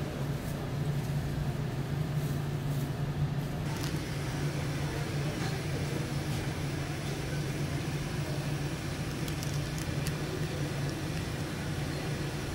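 Steady low machine hum over a constant background noise, with a few faint light clicks.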